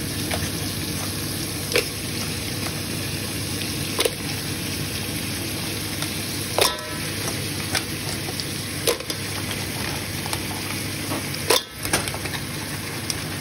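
Onions and tomatoes sizzling steadily in a hot rice cooker pot as pipis are added, with about six sharp clacks of shells knocking against the metal pot, one ringing briefly.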